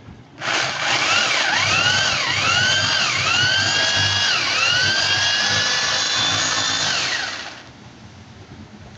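Electric drill motor running with a high whine whose speed drops and climbs back several times, then holds steady before winding down about seven seconds in.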